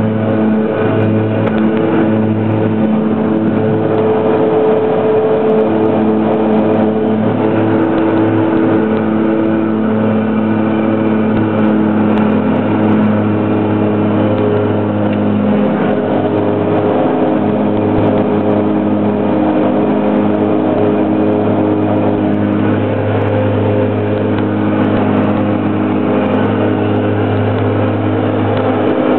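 Piper Cheyenne II's twin turboprop engines at takeoff power, heard inside the cockpit: a steady, loud drone with a constant propeller hum, through the takeoff roll and initial climb.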